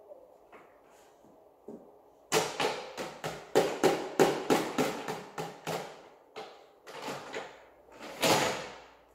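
Hard plastic toys clattering and knocking as a baby plays with them. About two seconds in comes a fast run of knocks, roughly four a second, which thins out later, with one louder rattle near the end.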